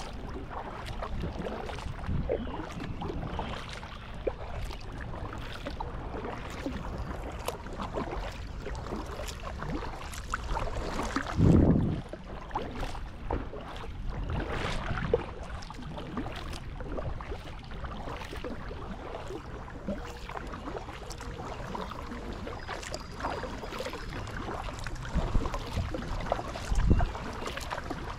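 Kayak paddling: paddle blades dipping and splashing in the river with water dripping and lapping against the hull, and a louder low thump a bit before the middle and again near the end.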